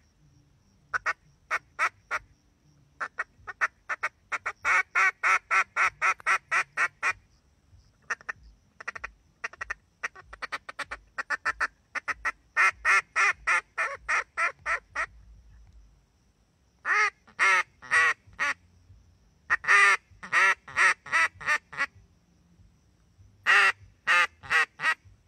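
Hand-blown Reyoka duck call sounding strings of rapid quacks, runs of a few to over a dozen notes with short pauses between. From about two-thirds of the way in, the quacks are louder and deeper.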